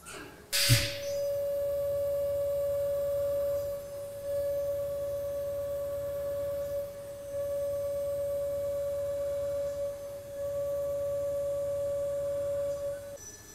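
DATRON MXCube spindle running a 5 mm single-flute end mill at 34,000 rpm through metal plate in a dynamic roughing cut: a steady single-pitched whine that dips briefly three times as the tool moves between passes, then stops shortly before the end. A sharp click about half a second in, just as the whine begins.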